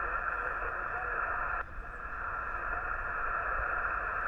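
Yaesu FT-891 shortwave transceiver's speaker hissing with band-limited static while receiving single-sideband on the 20-metre band, a weak station's reply buried too deep in the noise to copy. The hiss dips briefly about one and a half seconds in.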